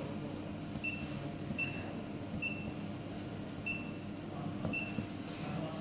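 Handheld fiber laser welding machine sitting powered on with a steady hum, while a short high-pitched beep sounds about once a second at slightly uneven intervals.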